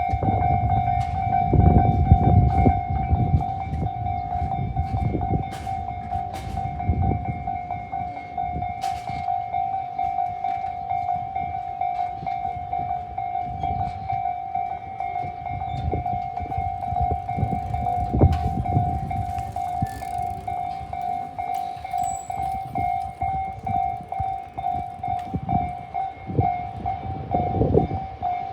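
Japanese level-crossing warning bell ringing continuously at one steady pitch. Underneath it a train rumbles across the crossing with the clatter of wheels on the rails, loudest about two seconds in.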